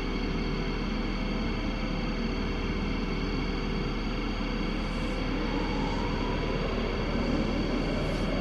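A steady mechanical drone: an even rumble with several constant whining tones above it, unchanging throughout.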